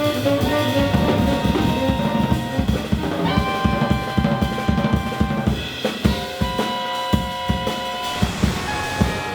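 Jazz ensemble playing, with the drum kit prominent in rapid, busy strokes of bass drum, snare and rimshots under long held chords that change roughly every two and a half seconds.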